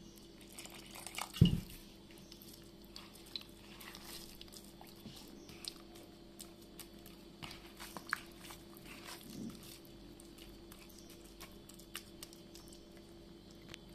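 Moist semolina harcha dough being gathered and pressed by hand in a bowl: faint, gritty crunching and small clicks, with one sharp knock about a second and a half in.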